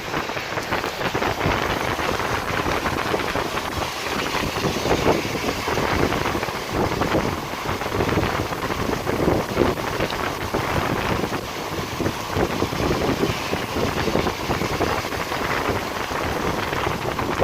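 Heavy rain falling steadily, a dense continuous patter of drops splashing on surfaces.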